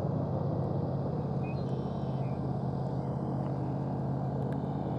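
Steady low drone of a boat engine running at an even pitch, with a few faint ticks of handling near the end.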